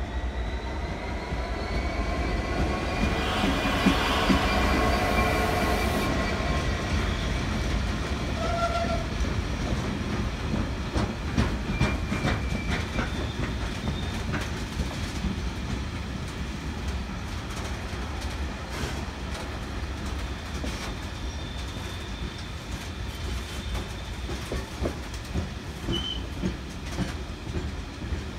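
A DB Cargo Class 66 diesel locomotive's two-stroke engine passes, loudest about four seconds in. A long rake of engineering wagons follows, wheels clicking steadily over the rail joints.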